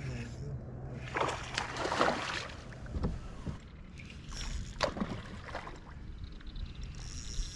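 Water splashing and sloshing in a few rough bursts, about a second in, near three seconds and again near five seconds, around a bass boat as a hooked bass is fought on a bent casting rod.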